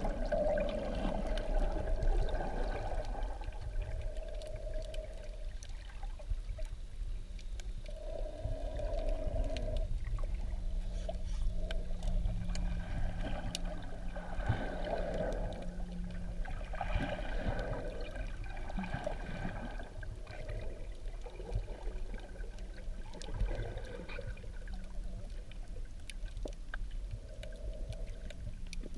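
Underwater ambience heard through a camera's waterproof housing: a steady low rumble of water with faint crackles and clicks, swelling and fading every few seconds, and a steady low hum from about a third of the way in.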